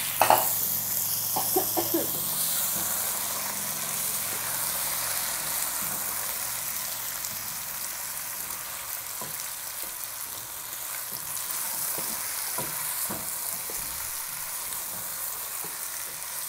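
Raw chicken pieces sizzling in hot oil in a nonstick pot over high heat, loudest in the first two seconds as they go in. The frying then settles into a steady hiss, with a wooden spoon stirring and knocking the pieces around.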